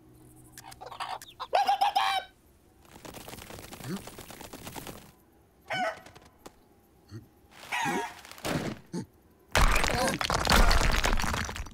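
Cartoon chickens clucking and squawking in short scattered calls, then, about ten seconds in, a loud rumbling crack as the rock of the cliff edge splits and begins to break away.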